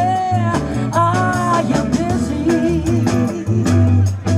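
Live amplified rock band playing: electric guitar, bass and drum kit, with a melody of long held notes over them.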